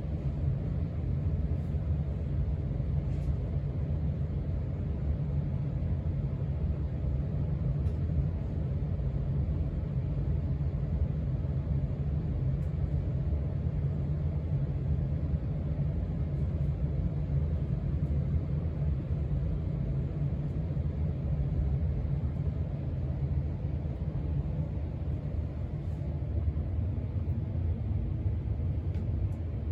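Casablanca Four Seasons ceiling fan running steadily on speed 3, heard as a steady low rumble.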